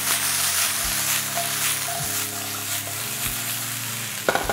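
Bacon and sliced potatoes sizzling and crackling in a frying pan on full heat. The bacon is rendering out its fat and starting to crisp and jump in the pan.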